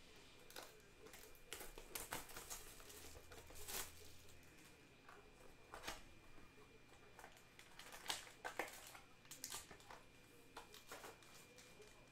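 Faint scattered clicks and short rustles of cards and packaging being handled on a desk.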